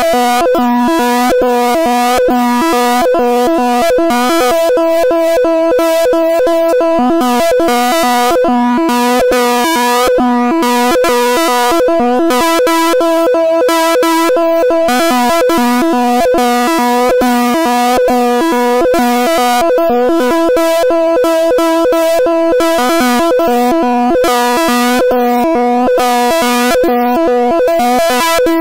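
Python-generated stereo signal that draws a rotating wireframe cube on an oscilloscope in X-Y mode, played as audio: a loud, buzzy synthetic chord of several steady held tones that flickers rapidly as the cube's shape changes.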